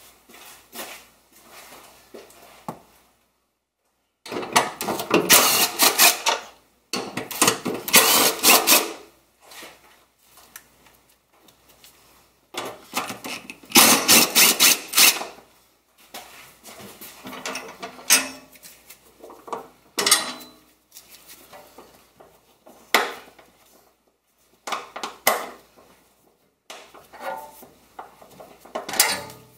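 Cordless power driver running in repeated bursts, backing out the screws that hold the rear-seat trim, with a fast clicking chatter. Three long bursts of two to three seconds come in the first half, then several shorter ones.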